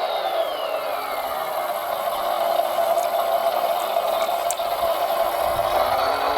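Electric motor and gearbox of a radio-controlled model construction vehicle whining steadily under load. A higher whine falls in pitch over the first second and a half, and another pitch rises near the end.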